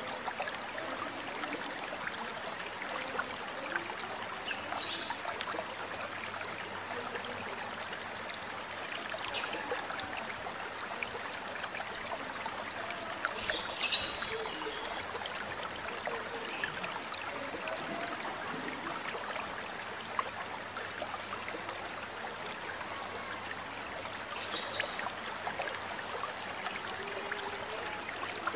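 A stream runs steadily while an oriental magpie-robin (kacer) gives short, high calls every few seconds. The loudest comes about halfway through.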